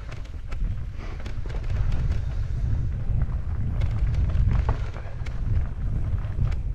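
Mountain bike riding down a rough trail: a steady wind rumble on the microphone, with frequent sharp clicks and knocks from the bike jolting over the ground.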